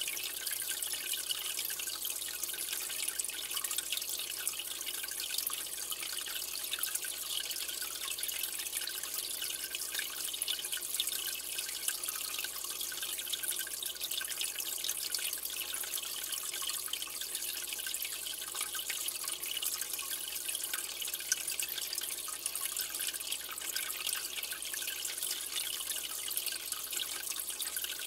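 Steady trickling and splashing of aquarium water: a constant hiss full of tiny drips and bubbles, from the tank's water circulation.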